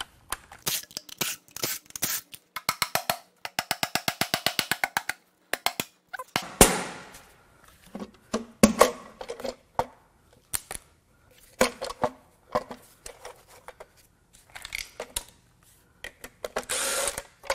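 Cordless ratchet running out valve-cover bolts on a small-block Chevy LT1 V8, a fast even ticking for about three seconds. It is followed by a series of separate knocks as a dead-blow mallet is brought against the valve cover to break it loose.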